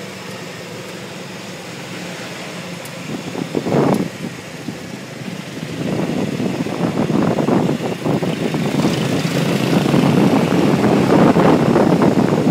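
Golf cart driving along a street: a low steady hum at first, then a louder rushing, rumbling road and wind noise building from about six seconds in.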